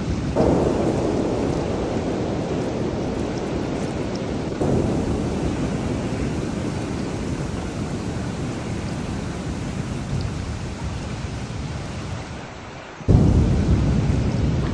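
Heavy rain falling steadily, with thunder: three sudden claps, about half a second in, near five seconds in and a louder one near the end, each rumbling away slowly.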